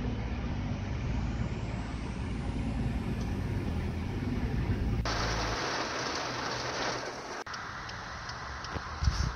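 Steady low rolling rumble of travel noise that stops about five and a half seconds in. A steady hiss begins just before it ends and fades a little later.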